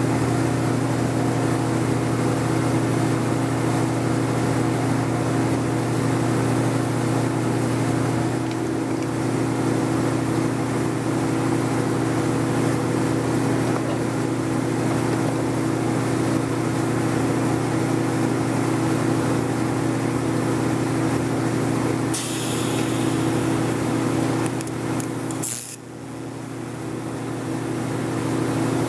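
Steady electric hum with a low buzz from running shop machinery. A short hiss comes about 22 seconds in and another just before 26 seconds, after which the hum dips briefly and builds back up.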